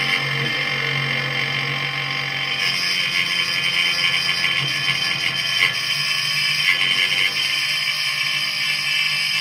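Chinese 6040 CNC router's spindle driving a 6 mm four-flute carbide end mill through steel, a steady high-pitched chatter: terrible vibrations in the cut even at a lowered feed.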